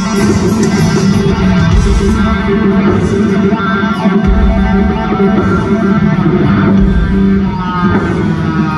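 Live rock band playing loudly, electric guitar to the fore over a heavy bass and drum wash, holding sustained notes; near the end a few notes slide down in pitch.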